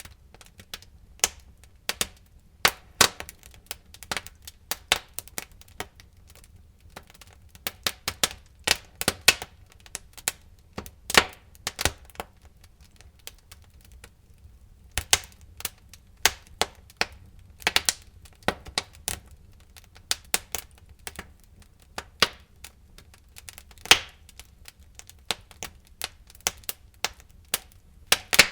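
Wood fire in a fireplace crackling: irregular sharp pops and snaps, sometimes several in quick succession, over a faint low rumble.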